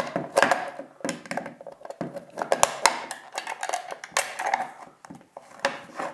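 A large flat-blade screwdriver scraping, clicking and knocking against the plastic housing of a sewing machine foot controller as it is pried at the case seam.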